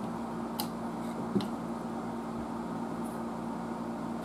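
Steady low hum of room or bench equipment, with two faint clicks from handling a small paper tubular capacitor.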